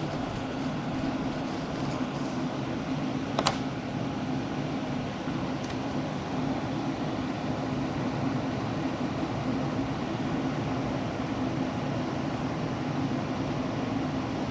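Solder fume extractor's fan running steadily with a low hum. One short click about three and a half seconds in.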